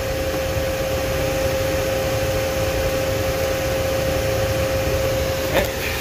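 Circuit tester's steady ground-signal tone, which the mechanic says is coming from his own finger on the probe rather than a real ground; it cuts off about five and a half seconds in. Under it runs the steady rush of the van's electric cooling fans.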